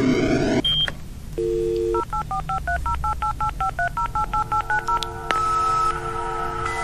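A radio jingle built from dial-up phone-line sounds: a short dial tone, then a quick run of about a dozen touch-tone (DTMF) dialing beeps, then steady line tones as the connection starts, evoking an old dial-up modem.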